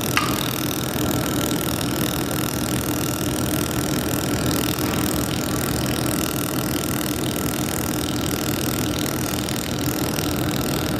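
Handheld laser welding machine running with a steady hum and hiss while it welds a continuous seam along a sheet-metal corner joint. A brief click comes right at the start.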